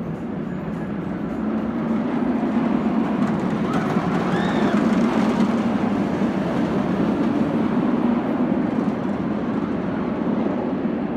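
Batman: The Ride, a Bolliger & Mabillard inverted steel roller coaster, with its train running overhead along the track. The rumble swells about two seconds in, is loudest in the middle and eases toward the end.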